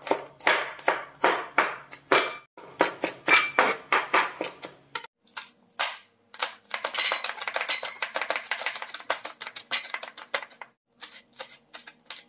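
Kitchen knife chopping garlic, shallots and red chilies on a plastic cutting board: a run of quick knocking strikes, faster and denser in the middle, with short pauses between bursts.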